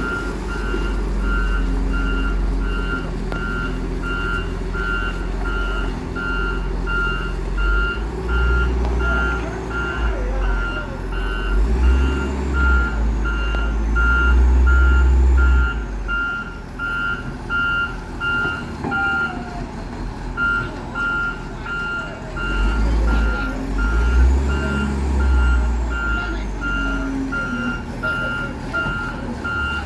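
Case 865B motor grader's reverse alarm beeping steadily about twice a second, one steady tone with a short break about two-thirds of the way through. Under it the grader's diesel engine runs, rising in the middle and again near the end as it manoeuvres.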